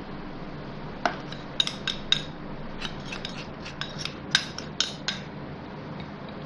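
A metal spoon clinking and scraping against bowls as gram flour is spooned out of a glass bowl: a dozen or so light, irregular clinks.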